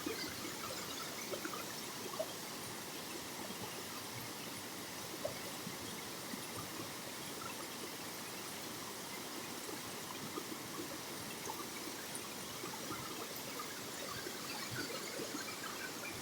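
Waterfall water running and splashing in a steady rush, with small splashes scattered through it.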